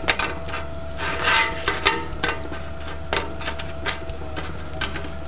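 A spatula scraping and clacking on a flat-top griddle as slices of baguette are flipped, in several irregular strokes over a steady hum.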